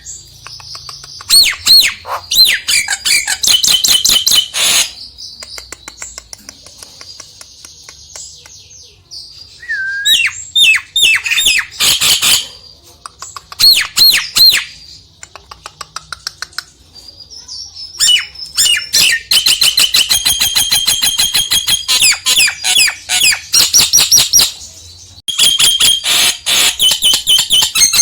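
Nias hill myna calls: loud bursts of rapid chattering notes mixed with sharp swooping whistles, coming in several runs with short pauses between them. This is a lure recording of the kind played to a quiet Nias hill myna to provoke it into singing.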